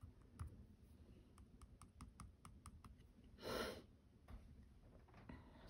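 Near silence with a quick run of about eight faint, light clicks, then a short rush of noise about three and a half seconds in.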